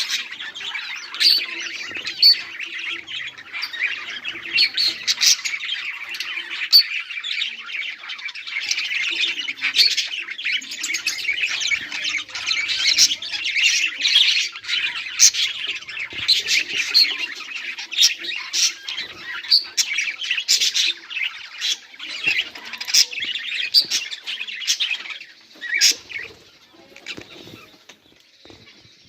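Several budgerigars chirping and chattering together, with frequent sharp squawks; the chatter dies down near the end.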